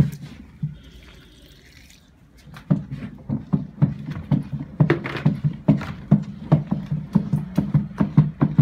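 A stirring stick working liquid soap mixture in a plastic drum: quick repeated knocks against the drum with sloshing liquid. It pauses briefly, then resumes about two and a half seconds in at roughly three or four strokes a second.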